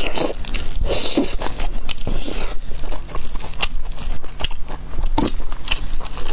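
Close-miked eating: a person biting and chewing food, with a dense, irregular run of sharp crackles and wet smacks.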